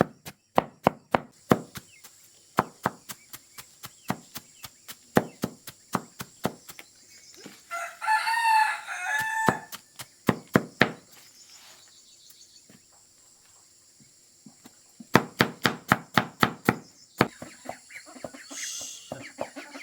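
Rooster crowing once, a call of nearly two seconds about eight seconds in, over steady chopping strokes. The strokes come two or three a second, stop for a few seconds, then come again in a quick run near the end.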